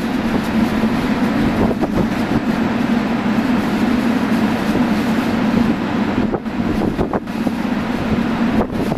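JR Kyushu 883-series 'Sonic' electric train standing at the platform, its onboard equipment running with a steady hum.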